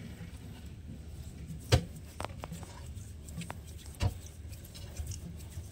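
A PVC threaded fitting being screwed by hand onto a threaded HDPE pipe: about five short, sharp plastic clicks, the loudest about two seconds in, over a low background.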